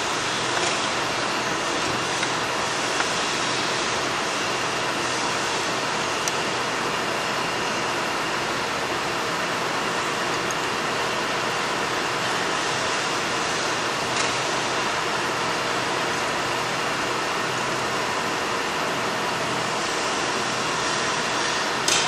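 Steady, even background noise of running machinery, with a few faint metal clicks as a chipper blade and Allen key are handled.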